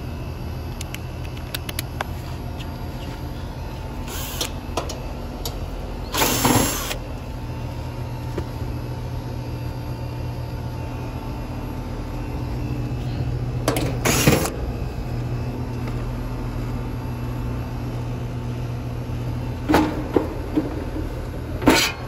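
Outdoor air-conditioner condensing unit running with a steady low hum, fairly quiet for its kind. A few brief, louder rushing noises break in, the loudest about six seconds in and others around fourteen and twenty-two seconds in.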